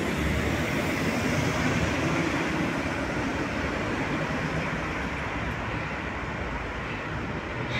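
Schwebebahn suspended monorail train approaching along its overhead steel track, a steady rumble of its wheels running on the rail.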